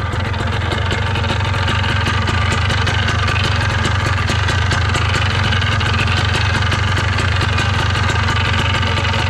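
A Polini Thor single-cylinder two-stroke paramotor engine idling steadily, its level rising slightly over the first second or so.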